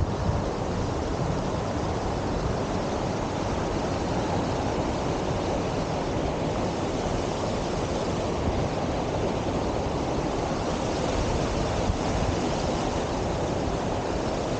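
Steady rushing of river water spilling over a low weir close by, even and unbroken throughout.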